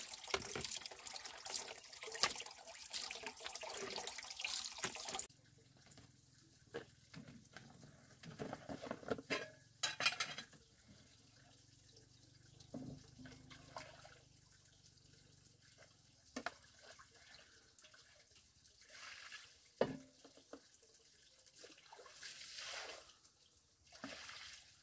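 Running water for about the first five seconds, stopping abruptly, then scattered light knocks.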